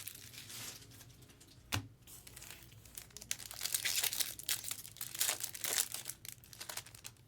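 Crinkling and rustling of trading cards and their packaging being handled, with small irregular clicks, busiest in the middle.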